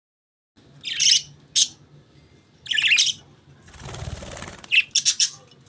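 Budgerigars chirping in short, high bursts, with a brief rustling whoosh about four seconds in, like wings flapping.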